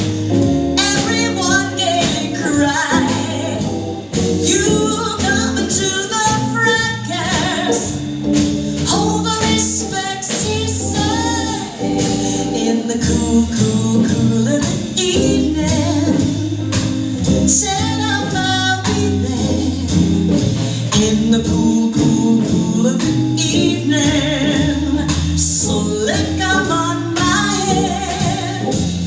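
Small live jazz band: a woman singing into a microphone over Hammond organ, archtop electric guitar and a drum kit keeping a steady beat.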